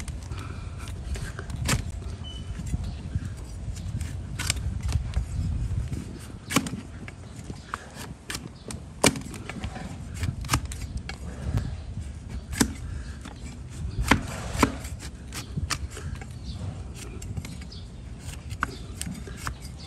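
Wide flat hoof-trimming blade paring the sole of a donkey's badly overgrown hoof on a wooden block: sharp, irregular cracks and knocks as slices of hoof horn are cut away and the blade meets the wood. A low rumble runs under the first few seconds.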